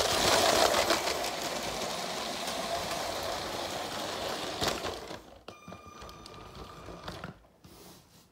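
Battery-powered LEGO City passenger train rattling along plastic LEGO track, its motor and wheels loudest as it passes close in the first second, then steady. About five seconds in the rattle drops away, leaving a thin steady whine for a couple of seconds before it fades as the train comes to a stop at the station.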